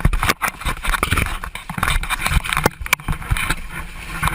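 Rough, irregular noise of water and buffeting on a small action camera's microphone inside a ditched plane's cabin as it floods, with scattered knocks and clatter.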